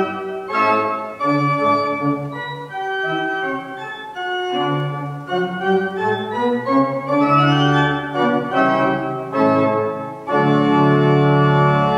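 Church organ playing a piece in several moving voices over low pedal bass notes, then sounding a long, loud full chord near the end.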